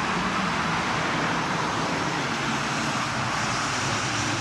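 Steady road traffic noise from a line of cars driving past on a dual carriageway: an even rush of tyres and engines with no single car standing out.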